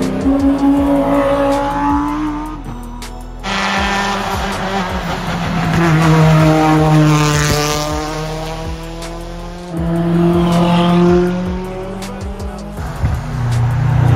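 Several cars, one after another, accelerating up a hill-climb course; each engine note rises and falls as the car passes, with abrupt cuts between the cars.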